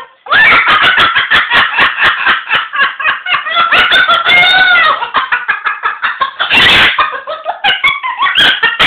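Moluccan cockatoo laughing: a loud, rapid run of cackling pulses, several a second, rising and falling in pitch, broken by a harsh noisy burst of about half a second around six and a half seconds in before the pulses resume.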